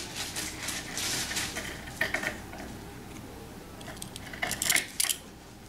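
Fabric rustling and small sharp clicks as straight pins are handled and pushed through layered cloth along a seam, with clicks about two seconds in and a quick cluster of them just before the end.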